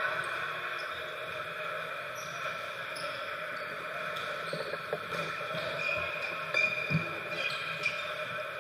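Gymnasium ambience: a steady hum in the hall, with a few short ball thumps on the hardwood floor, the loudest about six and seven seconds in.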